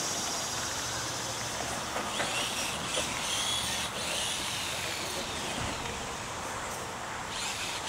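Electric motors of a radio-controlled monster truck whining as it drives over dirt, the high whine rising and falling with the throttle.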